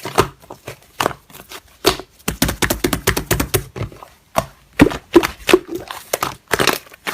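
Slime being squeezed and worked by hand: a string of sticky clicks, pops and crackles, thickest in a quick run from about two to four seconds in.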